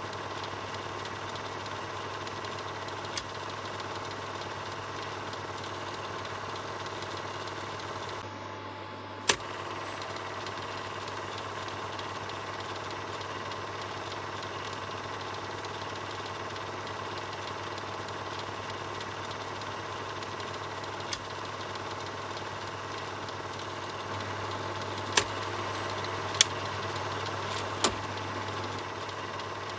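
Film projector running steadily: a continuous mechanical whirr with a low hum, broken by a handful of sharp clicks spaced irregularly.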